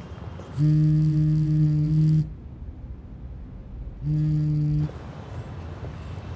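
Samsung smartphone vibrating on a desk for an incoming call: a steady low buzz about a second and a half long, a pause, then a second, shorter buzz.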